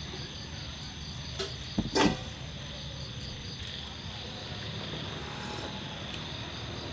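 Crickets chirping steadily in a high, rapid, even pulse, with a couple of sharp clinks of a spoon against a ceramic bowl; the louder clink comes about two seconds in.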